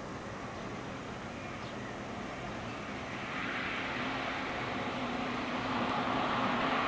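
FS E656 electric locomotive hauling a train of coaches through the yard: steady running and rail noise with a low hum, growing louder about three seconds in.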